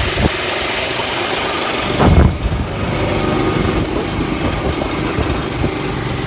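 A passenger vehicle's engine running with riders aboard, with a loud bump or knock about two seconds in.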